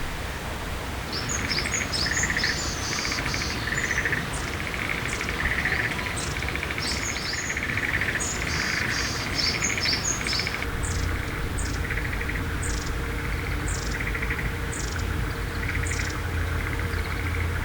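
Varied tit calling: a long run of short, buzzy nasal notes mixed with thin high notes, repeated over and over. A low background rumble runs underneath.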